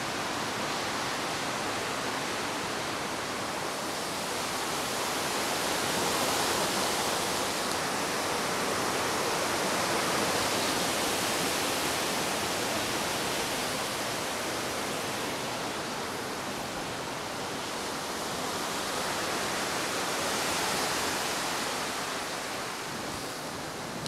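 Gusty wind blowing through leafy treetops ahead of an approaching storm: a steady rush of tossing leaves that swells with gusts several times.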